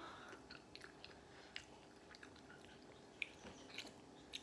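Near silence with faint chewing and a few light, scattered clicks of a metal spoon as rice is eaten.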